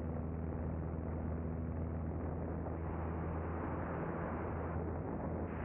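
1946 Luscombe single-engine propeller plane running steadily as it rolls down the runway: a low, even engine drone with a hiss of rushing air over it.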